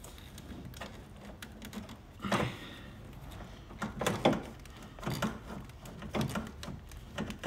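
A rubber hose being twisted and worked on a barbed hose connector by hand, giving a handful of short rubbery knocks and scrapes a second or so apart.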